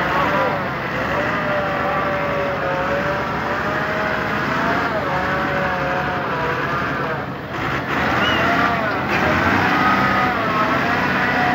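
Heavy truck engine revving under load, its pitch rising and falling as the truck pushes through deep flood water, with water splashing around the wheels.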